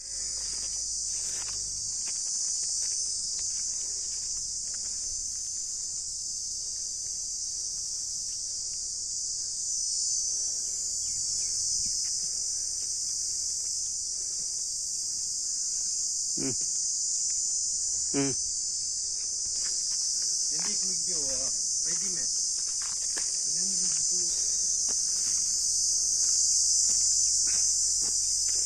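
Steady, high-pitched insect chorus droning without pause. A few faint short calls that sweep up and down in pitch come through about halfway in.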